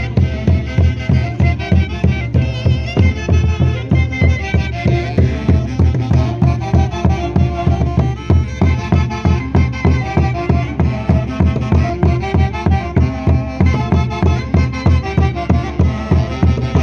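Festive Andean dance music played by a live orquesta from Huancayo, with several melody instruments over a strong, steady beat of about two to three pulses a second.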